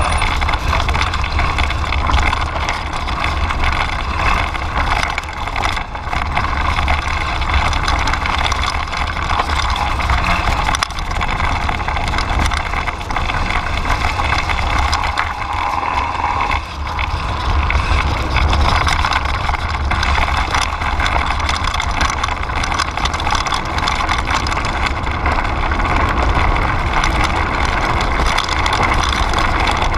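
Steady wind rumble on the action-camera microphone, mixed with the noise of a mountain bike's tyres rolling over a dirt and gravel trail at speed on a descent.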